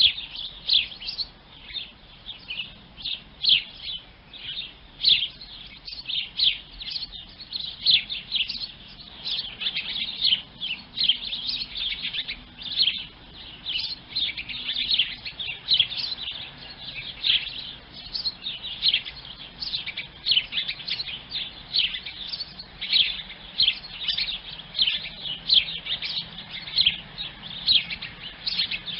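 Sparrows chirping: a steady, busy run of short high chirps that goes on without a break.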